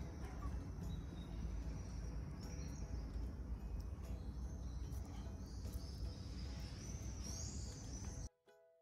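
Outdoor background noise: a steady low rumble with faint high bird chirps over it. Near the end the noise cuts off and quiet music begins.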